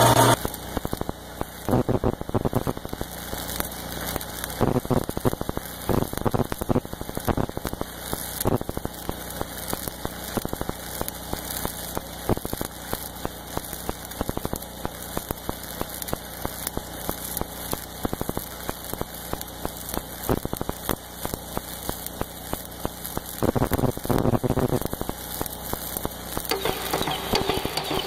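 Stick welder's arc crackling steadily as it lays a bead on steel plate. The crackle grows a little louder for a few seconds near the end.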